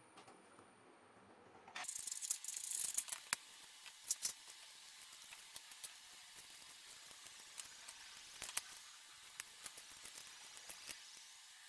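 Thin galvanized sheet metal being handled and bent by hand: a dense crinkling burst about two seconds in, then scattered clicks and rattles as the metal is pressed and folded.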